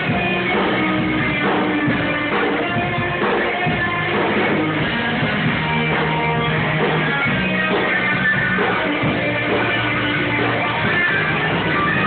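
Rock band playing live: guitar over a steady beat, loud and dense. The recording sounds dull and muffled.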